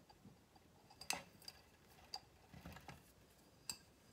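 Faint clicks and light taps, about five in all and the loudest about a second in, from a small glazed ceramic bonsai pot and bonsai wire being handled, as the wire is fitted into the pot to hold the drainage mesh.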